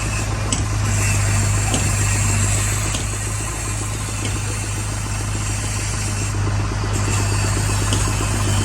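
Heavy diesel engine running steadily with a constant low drone and an even rattle.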